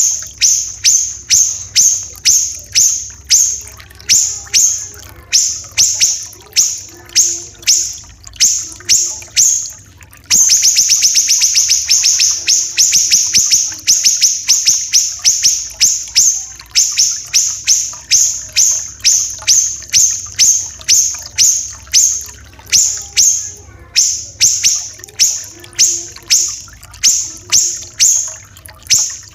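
Siri-siri kecil song: a long run of sharp, high notes, about three a second, that breaks about a third of the way in into a few seconds of fast, dense trill before the single notes resume. A faint trickling-water effect runs underneath.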